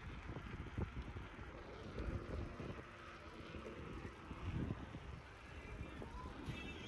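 Wind buffeting the microphone of a phone filming from a moving bicycle, in irregular low gusts over a steady rushing hiss. A brief high-pitched squeak near the end.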